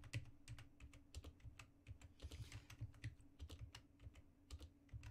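Computer keyboard typing: a run of light, irregularly spaced keystrokes as code is edited.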